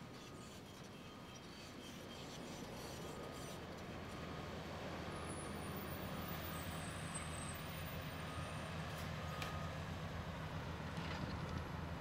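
Caterpillar 336E excavator's diesel engine running with a steady low drone, growing louder over the first several seconds and then holding.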